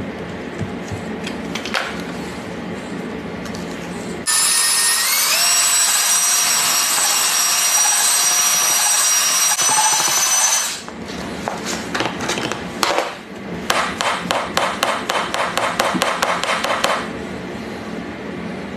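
Drill-driven paddle mixer stirring a bucket of thick compound: its motor starts suddenly with a loud high whine that climbs in pitch as it gets up to speed, runs for about six seconds, then gives way to a rapid rhythmic rattle at about six strokes a second.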